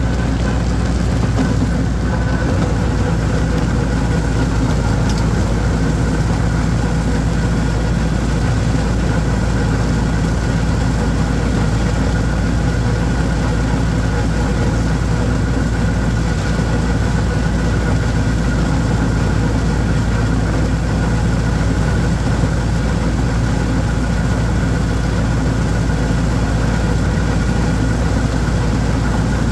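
Holder compact tractor's diesel engine running at a steady speed while mowing weeds, a constant even drone.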